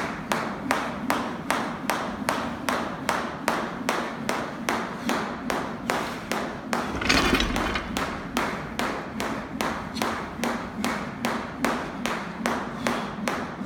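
Jump rope slapping the rubber gym floor in a steady rhythm, about two and a half strikes a second, as the skipper turns it. A louder noisy thud breaks in about seven seconds in.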